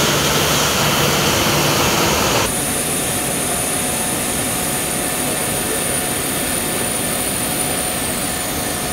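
Steady jet aircraft noise from a parked 737-type government jet: a loud rushing hiss that, after a cut about two seconds in, becomes a slightly quieter steady hum with a thin high whine.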